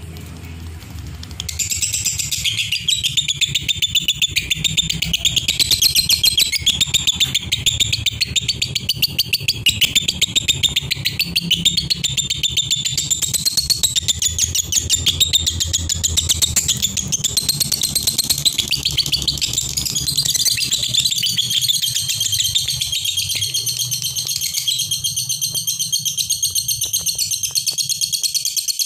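Caged lovebirds chirping in a fast, unbroken stream of shrill notes that starts about a second and a half in and runs on without a pause. This is the continuous 'konslet' song that keepers use as a master recording to train young lovebirds.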